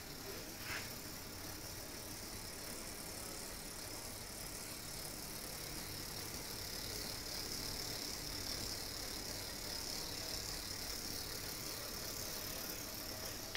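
Steady high whirring hiss from a home-built electric bicycle's motor and drive running with the wheel spinning, swelling slightly in the middle, with one faint click about a second in.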